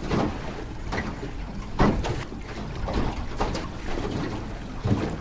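Small boat under way at trolling speed, its outboard motor running with a steady low rumble, while water splashes against the hull and wind buffets the microphone in irregular gusts.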